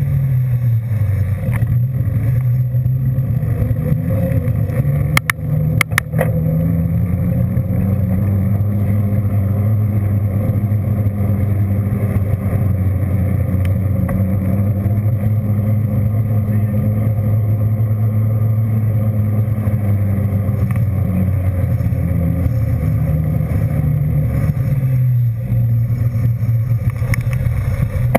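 A vehicle's engine running on the move, heard from on board. Its pitch drops in the first second, climbs again about six to eight seconds in, holds steady, and falls near the end, with a few sharp clicks about five and six seconds in.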